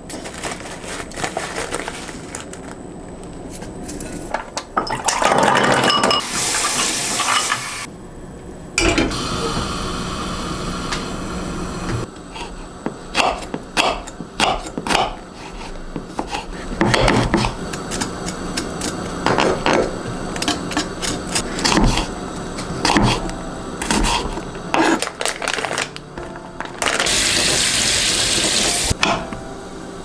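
Tap water running into a glass bowl, then a small kitchen knife tapping and chopping on a wooden cutting board in quick, irregular strokes, with soft background music. The water runs again briefly near the end.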